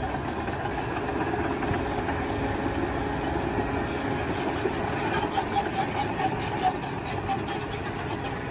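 An engine running steadily at idle, an even mechanical drone.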